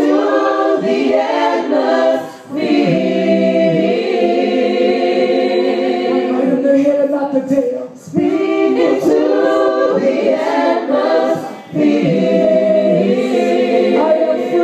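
Gospel praise team singing a worship song together, several voices in long held phrases with short breaks between them.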